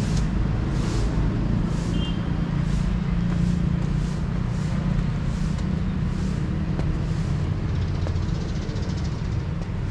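Steady low rumble of road traffic, with one vehicle engine humming through the first half. Over it, footsteps on stone steps and paving, about one every two-thirds of a second.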